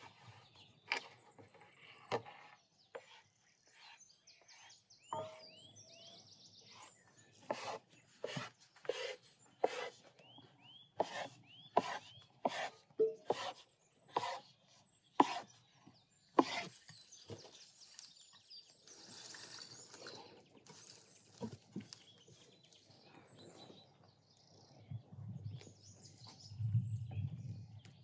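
Kitchen knife cutting a rolled strip of dough into pieces on a wooden board: a run of sharp knocks, about two a second, as the blade strikes the board. Birds chirp in the background.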